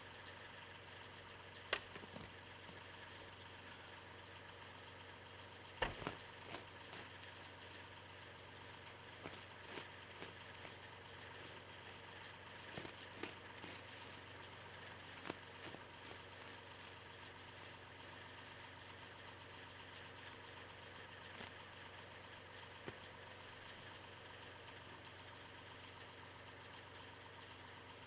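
New Holland TN75DA tractor's diesel engine idling steadily and faintly, with a few short sharp clicks and knocks over it, the loudest about six seconds in.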